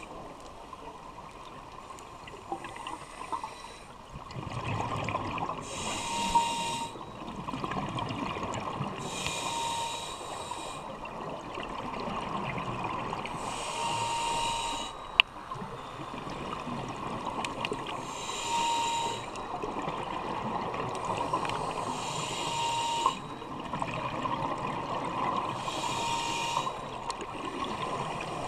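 Scuba regulator breathing underwater: a hissing breath about every 3 to 4 seconds, each with a short whistle-like tone, between stretches of rumbling, bubbling exhaust. A single sharp click about halfway through.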